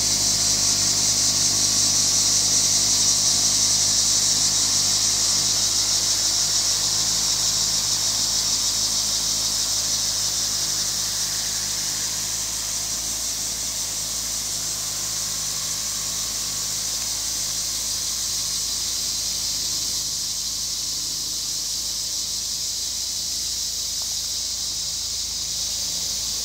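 Loud, steady chorus of crickets and cicadas, a dense high-pitched buzz that runs without a break. A faint low engine hum from the departing tractor lies underneath at first and fades away.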